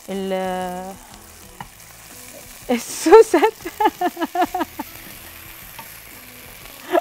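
Cooked fusilli sizzling quietly in a hot pan of olive oil, garlic slices and cherry tomatoes as it is tipped in and tossed with a silicone spatula.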